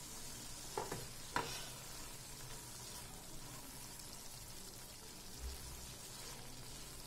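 Thick masala gravy sizzling in a frying pan while a silicone spatula stirs and spreads it, with two sharp clicks of the spatula against the pan about a second in.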